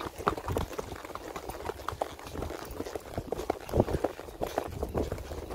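Horse's hooves striking a dirt trail while ridden, a quick, uneven run of thuds several times a second.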